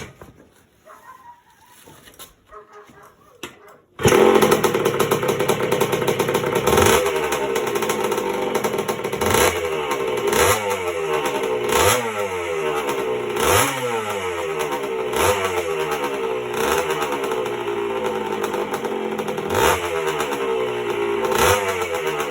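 1977 Honda CR125M Elsinore's 125 cc two-stroke single-cylinder engine starting on choke after a few quiet seconds, catching suddenly about four seconds in. It then runs with the throttle blipped again and again, each rev rising sharply and dropping back, on its freshly rebuilt top end.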